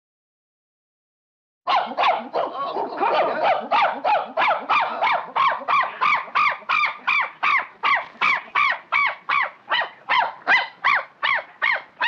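Monkey calling in a long, even run of short, pitched calls that rise and fall, about three a second, starting about two seconds in.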